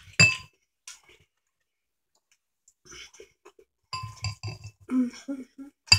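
A fork clinking against a bowl of noodles: a sharp clink about a quarter second in, a quick run of clinks and scrapes around four seconds in, and another sharp clink near the end. Soft mouth sounds of eating come in between.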